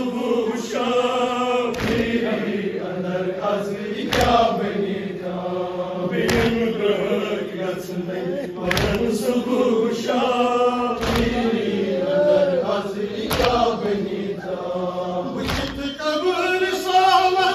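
Male reciter chanting a nauha, a Shia lament for Ali Akbar, in a drawn-out sung line through a microphone. About every two seconds it is cut by the sharp slap of mourners beating their chests (matam) together, roughly seven strikes in all.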